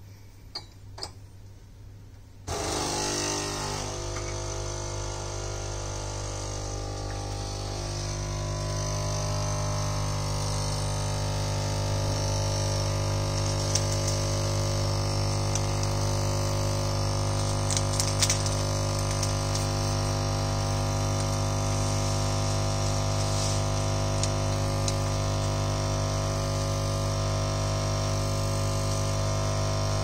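Two light clicks, then about two and a half seconds in a Nespresso capsule coffee machine's pump starts with a steady buzzing hum, forcing water through the capsule as the coffee brews. The hum grows a little louder near ten seconds in and holds steady.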